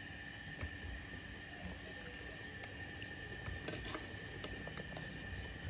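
Insects chirping steadily in the background: a high, evenly pulsing trill alongside a steady high tone, with a few faint clicks.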